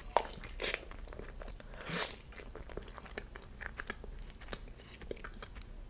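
Close-miked chewing and crunching of a dessert, with scattered faint mouth clicks and one louder bite about two seconds in.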